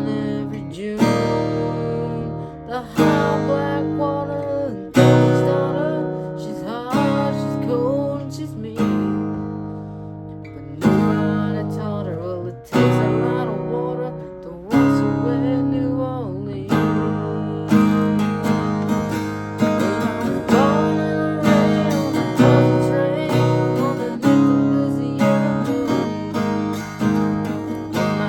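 Acoustic guitar strumming chords, with a strong strum about every two seconds, under a melody line that bends in pitch.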